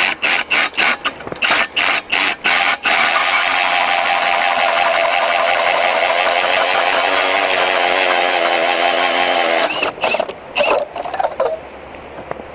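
Cordless drill turning an ice auger through lake ice. The motor first runs in rapid short stop-start bursts, then runs steadily under load for about seven seconds and stops abruptly, followed by a few more short bursts.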